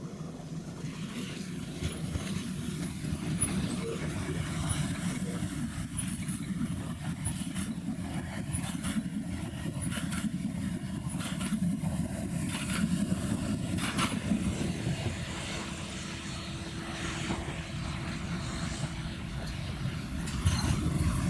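Passenger train passing close at speed: a steady rumble of wheels on rail, with a run of sharp clicks as the wheels cross rail joints and points. Near the end a second train, hauled by an electric locomotive, approaches and the rumble grows louder.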